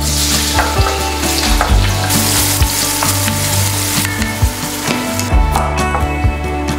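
Chopped onion sizzling as it fries in hot ghee in an enamelled pot, stirred with a wooden spoon. The sizzle stops about five seconds in, leaving soft background music.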